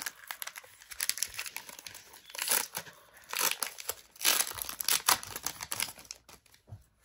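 Foil wrapper of a Pokémon trading-card booster pack being torn open and crinkled by hand, in a run of sharp crackling bursts that die down near the end.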